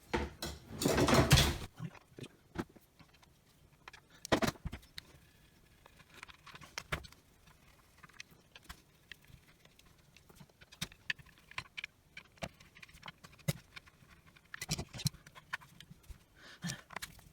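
Hand-tool handling during disassembly: a short rattle of small metal tools about a second in, then scattered light clicks and taps.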